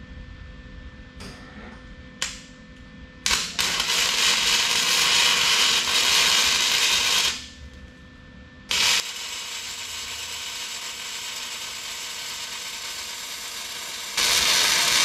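Electric arc welding on the steel bracket of an excavator rake attachment: a sizzling hiss in several runs, the longest about four seconds, then a quieter steady stretch and a loud run again near the end. Two light taps come before the first run.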